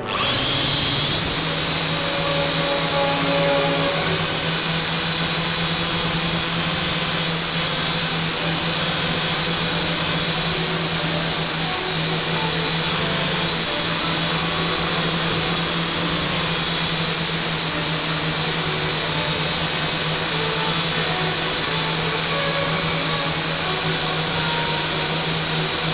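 Small multirotor drone's motors and propellers running steadily in flight, a constant whirring whine with high steady tones that hold their pitch.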